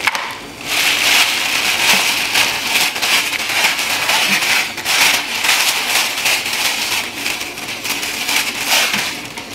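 A tamarind packet being handled and opened, crinkling and crackling densely without a break. It starts about half a second in and stops just before the end.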